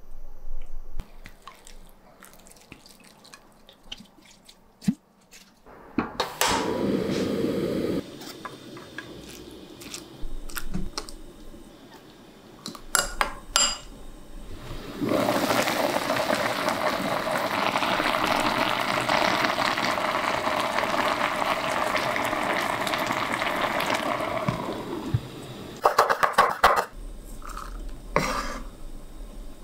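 Liquid kitchen sounds: a short pour of Chungha rice wine into the pot, then a spoon stirring a soy-based sauce in a glass bowl for about ten seconds, with light clinks of the spoon against the glass.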